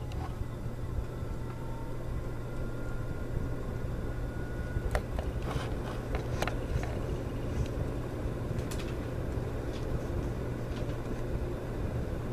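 Casablanca Delta II ceiling fan motor starting up and running up to speed: a steady hum, with a faint whine rising in pitch over the first few seconds and a few scattered clicks.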